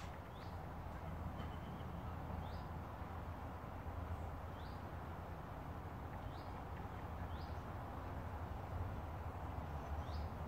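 A small bird repeating a short, high call about six times, one every second or two, over a steady low background hum.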